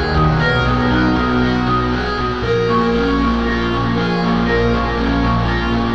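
Background music led by guitar, with sustained notes changing every second or so.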